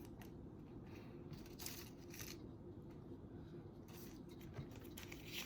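Faint room tone with a few soft, short rustles and scrapes, as of craft materials being handled.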